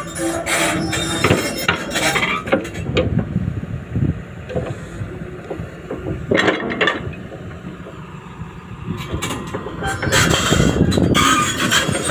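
Crawler excavator travelling on its steel tracks: track links clanking and squealing over the engine's running. The sound eases off around the middle and comes back loud near the end.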